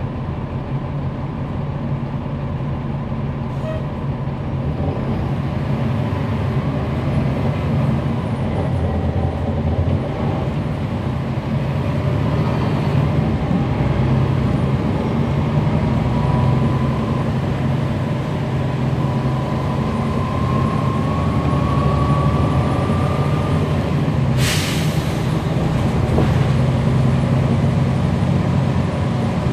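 Cummins ISL9 diesel engine and ZF Ecolife automatic transmission of a NABI 416.15 transit bus, heard on board while under way: a steady low drone, with a whine that rises slowly from about twelve seconds in. The whine cuts off, and a short sharp hiss of released air follows at about twenty-four seconds.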